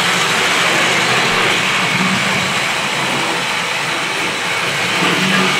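Hornby Triang OO gauge model trains running round the layout: a steady whirr of small electric motors and wheels on the track.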